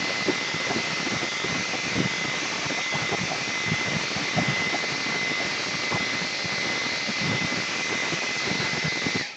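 Handheld hair dryer blowing steadily, with a high steady whine over the rush of air and a gusty low rumble, drying freshly sprayed leather dye on a car seat. It is switched off near the end.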